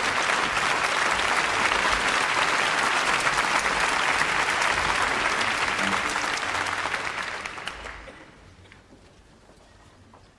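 Concert audience applauding, a dense steady clapping that dies away over about two seconds near the end, leaving quiet with a few faint ticks.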